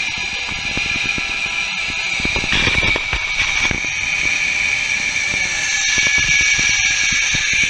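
Zip line trolley pulleys running fast along a steel cable: a steady high-pitched whine, growing louder toward the end, with wind buffeting the microphone.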